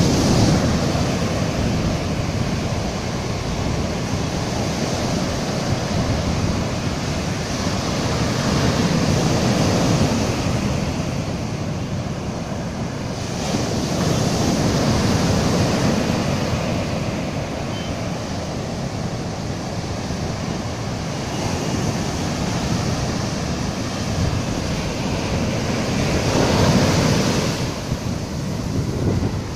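Sea surf breaking and washing over a sand beach, the foaming swash rushing up the shore and the backwash draining away, swelling and easing with each wave and loudest near the end. Wind buffets the microphone underneath.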